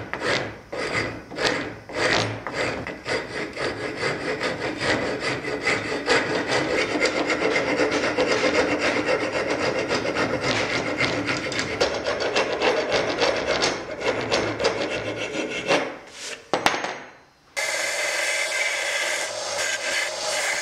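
Hand rasp shaping a walnut hammer handle clamped in a vise: repeated rasping strokes, at first about two a second, then quicker and more even. Near the end, after a brief pause, a steady belt-grinder sanding sound takes over.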